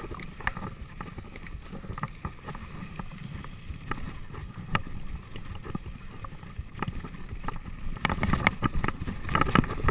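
Mountain bike riding down a dry gravel trail, with tyres crunching over the ground, scattered rattles and knocks from the bike, and wind on the microphone. The knocks come thick and fast near the end as the track gets rougher.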